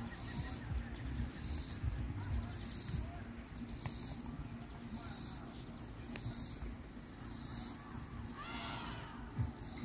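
Insect calling outdoors in raspy, high-pitched pulses repeating about once a second, over a low rumble.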